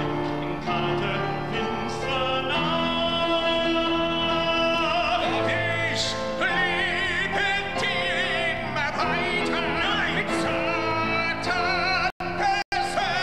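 Male voice singing a dramatic musical-theatre number in operatic style over sustained accompaniment, holding long notes with wide vibrato. The sound drops out briefly a couple of times near the end.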